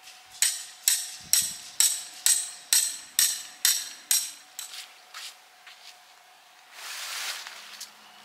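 A metal tent stake being hammered into hard ground: about ten sharp, ringing strikes at about two a second, then a few lighter taps. A brief rustling swish follows near the end.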